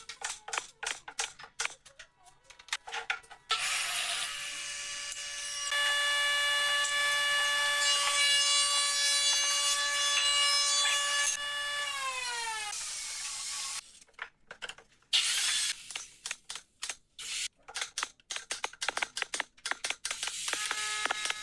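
An electric power tool's motor runs on wood for about ten seconds. It gets louder a couple of seconds in as it works, then its pitch falls as it winds down and stops. Quick irregular clicks and taps of hand work come before and after it, and a motor starts again near the end.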